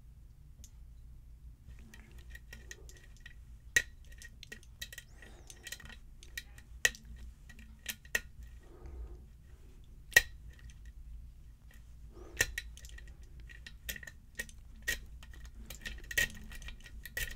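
Lock pick and tension wrench working the pins of a pin-tumbler lock: scattered sharp metallic clicks and ticks, each with a brief high ring, the louder ones coming irregularly about every second.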